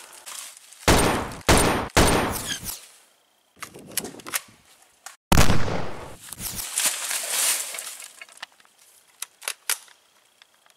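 Film gunfire sound effects in a shootout. Three loud shots come within about a second, each with a booming tail, then a quick rapid-fire burst, another loud shot around halfway, and several sharper, thinner shots near the end.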